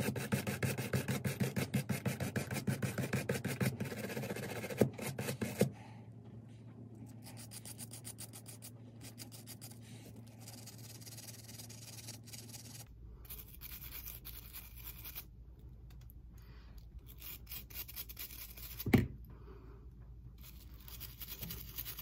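Small wire brush scrubbing rust off the metal of a rusted model train truck in quick back-and-forth strokes, about four a second. The strokes are loud for the first six seconds, then turn lighter and quieter. One sharp knock comes near the end.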